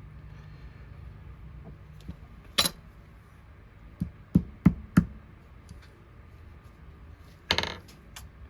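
Small hard knocks and taps from wheels being fitted onto a diecast toy car's axles at the workbench. There is one knock, then four quick taps about a third of a second apart, and near the end a short clattering knock.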